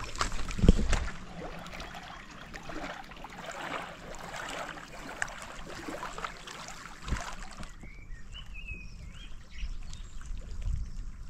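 Small waves lapping and splashing against a stony lake shore, a rough, crackling water noise. About eight seconds in it gives way to a quieter background with a few faint high chirps.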